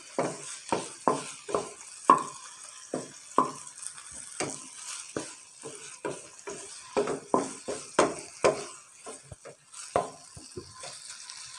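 Wooden spatula stirring and scraping chicken pieces in a nonstick frying pan, about three strokes a second and sparser near the end, over a light sizzle as the chicken is fried dry.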